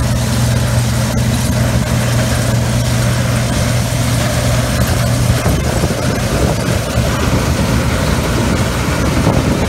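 Combine harvester running close by, its pickup header gathering a millet windrow: a steady, loud engine and machinery drone. A deep hum holds for about the first half, then gives way to rougher, fluctuating machine noise.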